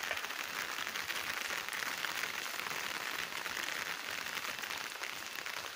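Steady hissing outdoor background noise with a fine, even crackle.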